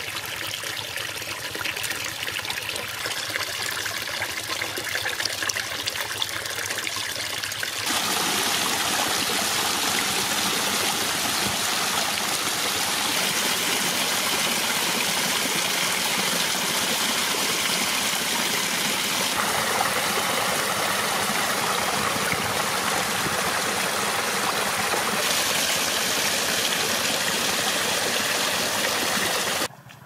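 Water pouring from clay-pot spouts in a mud wall and splashing into a pool, a steady rushing and splashing. About eight seconds in it turns louder and fuller, as water sheets down over the wall.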